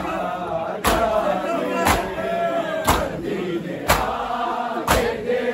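A crowd of men chanting a noha, a Shia mourning lament, in unison, with loud chest-beating (matam) keeping time: sharp slaps land together about once a second, five times.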